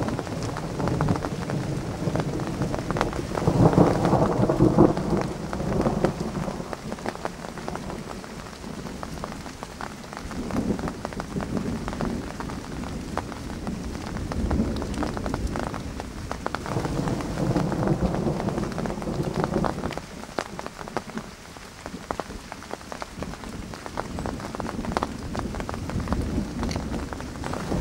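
Rolling thunder from a thunderstorm, rumbling in several long swells, the loudest about four seconds in, over steady rain. Many small ticks of raindrops hitting close by run through it.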